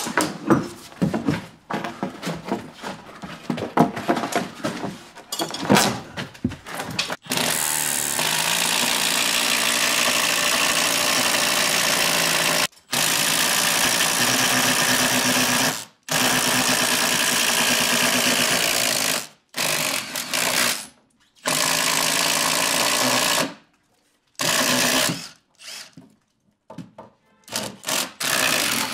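Power drill running in long, loud runs, stopping briefly a few times and giving shorter bursts near the end. The first seven seconds hold irregular knocking and clattering.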